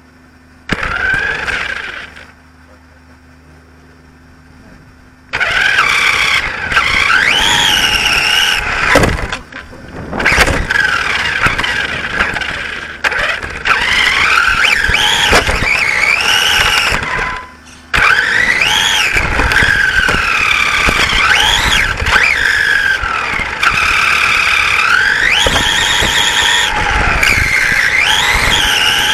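Radio-controlled racing saloon car's motor and drivetrain whining as the car drives. The pitch rises and falls with its speed. After a short burst about a second in and a few quiet seconds, the car runs almost continuously, with brief let-offs twice.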